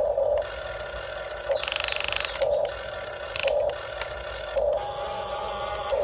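Huina RC excavator's electric motors and gearboxes whirring in short bursts about once a second as it is worked, with a longer, higher buzzing run about two seconds in.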